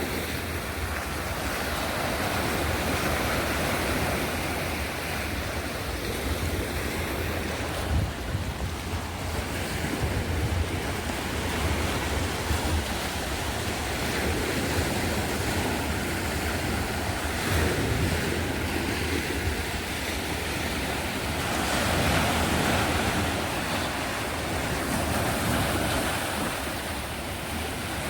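Sea waves washing onto the shore in a steady wash that swells and ebbs, with wind buffeting the microphone.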